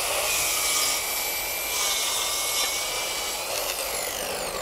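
Festool HK 85 EB corded circular saw running at full speed with a high whine, fitted on a guide rail for cross-cutting a thick beam. About three and a half seconds in, the whine falls in pitch as the blade spins down.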